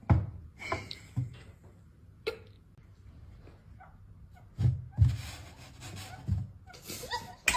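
Irregular thumps and knocks, the loudest about five seconds in, with a rustling noise through the second half.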